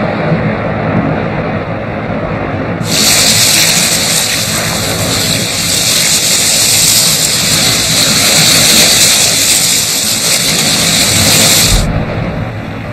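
Rushing, churning water with a steady low rumble. A loud hissing rush of water and bubbles starts suddenly about three seconds in and cuts off near the end.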